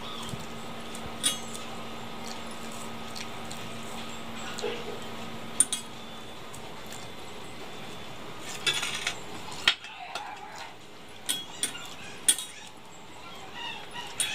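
Scattered light clinks and taps of metal bangles and finger rings against a steel plate and bowl as rice and curry are mixed and scooped up by hand. A faint steady hum runs underneath and fades out about halfway through.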